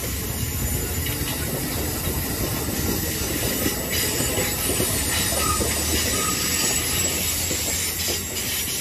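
Amtrak Northeast Regional passenger cars passing at speed: a steady rush of steel wheels on the rails.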